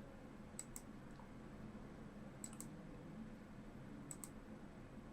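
Faint, sharp clicks in quick pairs, three pairs about a second and a half apart, over quiet room tone.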